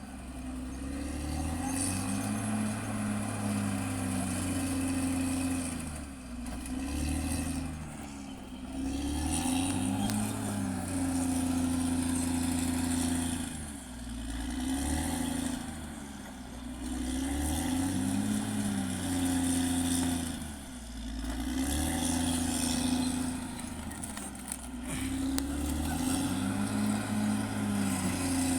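Caterpillar D6R XL bulldozer's diesel engine working, its note dropping and climbing back again every few seconds as the revs change.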